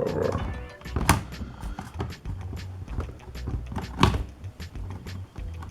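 Plastic laptop casing being handled and pried at, giving sharp clicks and knocks. The loudest come about a second in and about four seconds in.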